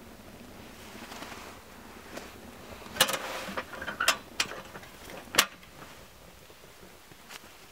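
Metal clanks and clicks as the chimney-topped upper section of a homemade aluminium stove is set onto its base and its clip latches are snapped shut: a cluster of sharp clanks about three seconds in, more around four seconds, and one last sharp click a little after five seconds.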